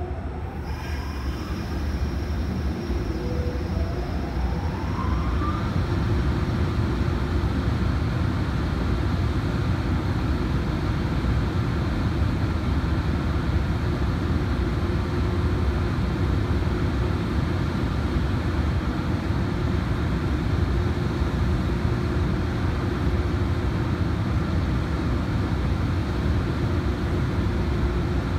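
EH500 electric freight locomotive standing with its on-board electrical machinery spinning up. Two rising whines come in the first five seconds as the sound grows louder, then it settles into a steady, loud hum and rush.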